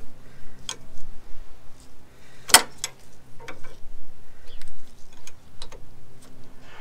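Scattered metallic clicks and ticks from a spanner working the bleed nipple of a Ford Transit Mk7 rear brake caliper while the brakes are bled, with one sharp, louder click about two and a half seconds in. A faint steady low hum sits underneath.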